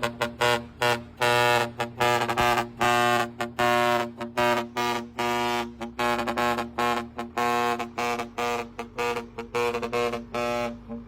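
A four-foot horn blown in a rapid series of short honks, about two to three a second, each slightly shifting in pitch, over a steady low drone. The honks stop near the end.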